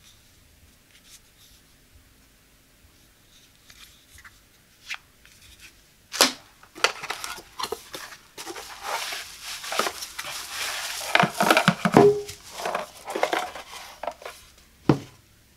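A few faint clicks and taps, then a sharp click as a cardboard box is opened. A run of crackling and rustling follows as the box is slid off a bottle packed in bubble wrap, with cardboard scraping and plastic wrap crinkling. A single sharp knock comes near the end.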